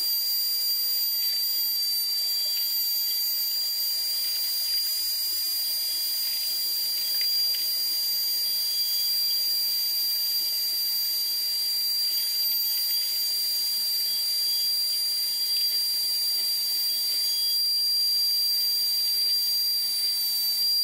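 CNC-driven trim router spinning at high speed and cutting into plywood, with a vacuum hose nozzle sucking up the dust beside the bit: a steady high whine over airy hiss.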